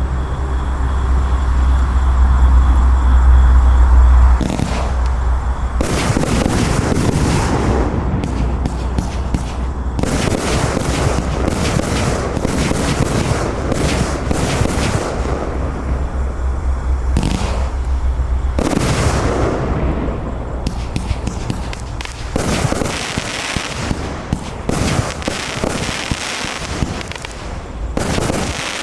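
A 25–30 mm compound fireworks cake firing, with a dense, rapid run of shots launching and bursting overhead.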